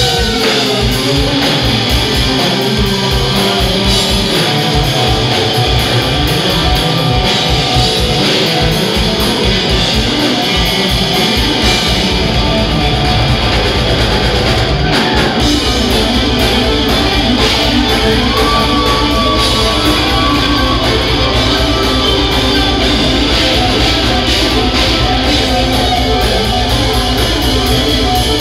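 Live hard rock band playing loud through a concert PA: electric guitar and electric bass over a drum kit, with no singing. About twelve seconds in, the low end fills out and gets heavier.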